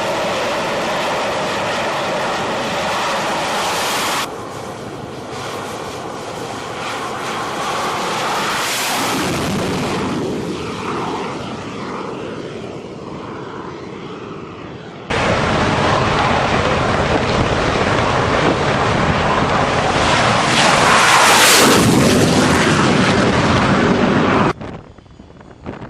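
Jet aircraft noise, a steady loud roar in several cut-together stretches that swells up and falls away twice, about nine seconds in and again near the end.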